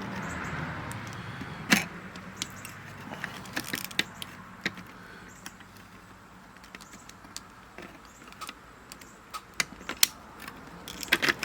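Small clicks, taps and rattles of a Cen-Tech P37772 digital multimeter's plastic case and internal parts being handled and fitted back together, with a sharper knock about two seconds in and a quick cluster of clicks near the end.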